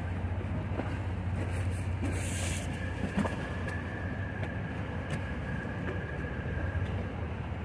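A boat's engine running with a steady low drone. A faint high whine comes in about two seconds in and fades near the end.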